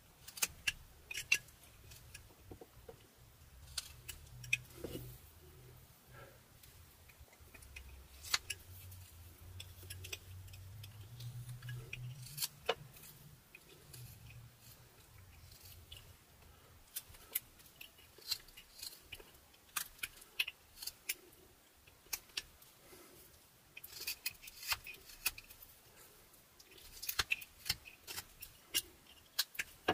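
Whittling knife slicing into a butternut wood blank in short, irregular cuts: crisp snicks and clicks, often in quick clusters, busiest in the second half. A faint low hum sits under the first half.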